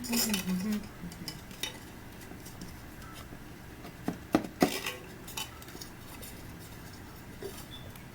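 Scattered small clicks and rustles of food and its packaging being handled while eating, with three sharp clicks a little past four seconds in, the loudest sounds.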